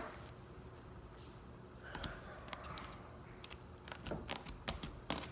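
Faint scattered clicks and taps, a few in quick succession between about two and five seconds in.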